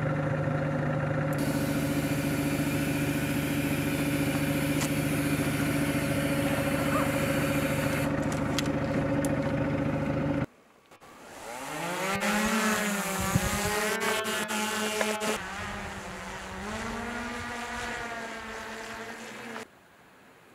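A steady engine hum with a few held tones, cut off suddenly about halfway through. Then a small quadcopter drone's motors whine: the pitch rises as they spin up and wavers up and down for several seconds as it flies, then stops abruptly.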